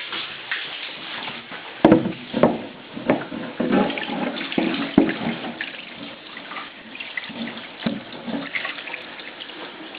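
Whole fish tumbling in a homemade wire-mesh scaling drum, knocking against the mesh in irregular thumps and rattles over running, splashing water.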